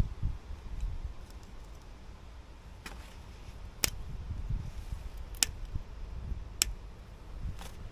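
A handful of sharp, separate metallic clicks, a second or so apart, from hand tools working at a rear brake caliper while a stuck, broken part is being extracted. A steady low rumble sits underneath.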